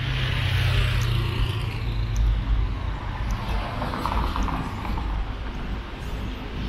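City street traffic: a passing motor vehicle's engine hum, strongest in the first few seconds over general road noise. A short run of rapid ticking comes a little past halfway.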